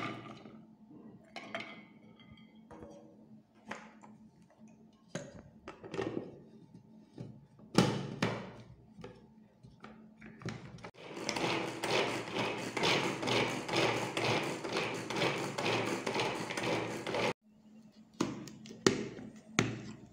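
Hand-operated vegetable chopper chopping garlic cloves. A few clicks and knocks come first as the lid is fitted. Then comes about six seconds of steady, fast-pulsing rattling whirr as the blades spin, which stops abruptly, followed by a few more clicks.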